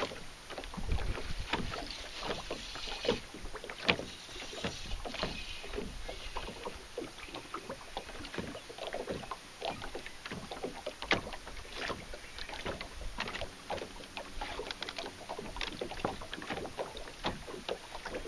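Small waves lapping and slapping irregularly against a boat hull, with wind rumbling on the microphone.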